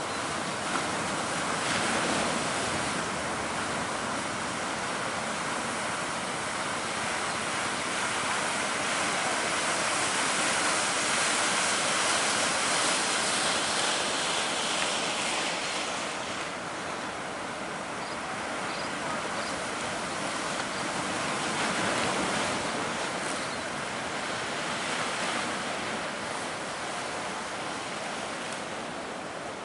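Big ocean waves breaking and washing as surf, swelling louder and easing off every several seconds, with wind.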